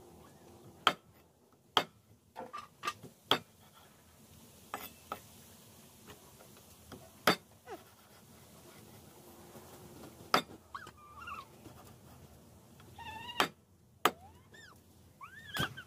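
A cleaver chopping dried fish on a round wooden chopping block: about a dozen sharp chops at uneven intervals. A cat meows several times in the second half.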